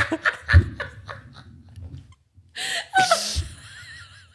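People laughing in short, breathy bursts, with a low thump about half a second in.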